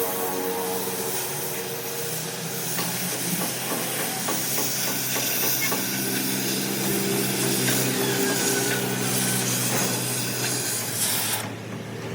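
Loud, steady hissing over a low machine hum, with the hiss stopping suddenly near the end.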